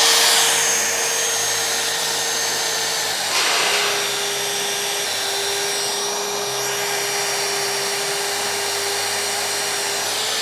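Magnetic drill with a slugger annular cutter running with a steady electric motor whine. About three seconds in there is a brief rasp and the whine drops slightly in pitch as the motor takes load, consistent with the cutter biting into the steel angle.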